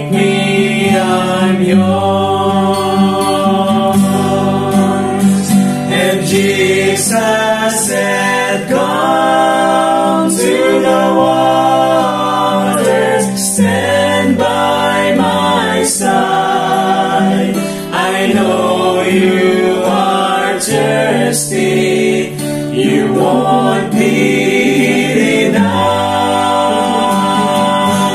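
Music: a small vocal group singing a slow gospel song in harmony, accompanied by acoustic guitar.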